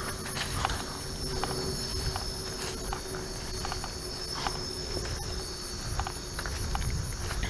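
Night insects, crickets, chirring steadily in a continuous high chorus, with scattered light ticks and rustles through it.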